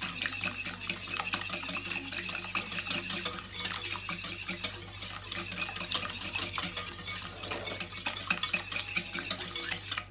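Metal balloon whisk beating eggs in a ceramic bowl: fast, continuous clicking and scraping of the wires against the bowl.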